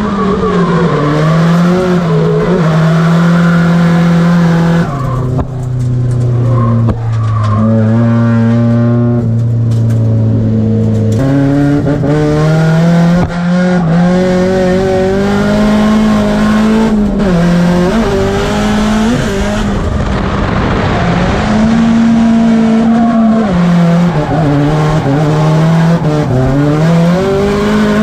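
Drift car's engine heard from inside the cabin, held high and rising and falling as the throttle is worked through the slides, with tyres squealing. About five seconds in, the revs drop to a lower, steady note for several seconds before climbing again.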